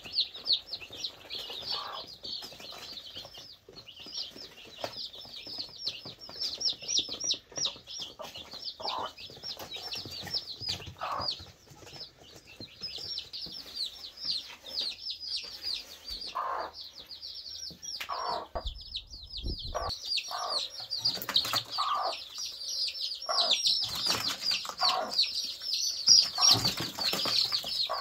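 Newly hatched chicks peeping nonstop in high, rapid, falling cheeps, with the mother hen clucking low every so often. There is some rustling and knocking of handling in the straw-filled box in the second half.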